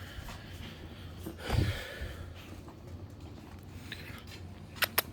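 Eight-week-old rottweiler puppies at play while being handled: a brief rustling huff about a second and a half in, then a quick run of sharp clicks near the end.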